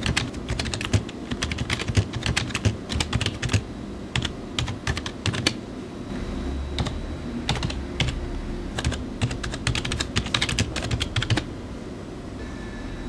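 Fast typing on an HP computer keyboard: quick runs of key clicks with short pauses, stopping shortly before the end.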